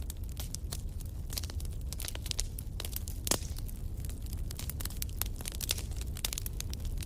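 Wood campfire crackling, with irregular snaps and pops and one louder pop about three seconds in, over a steady low rumble.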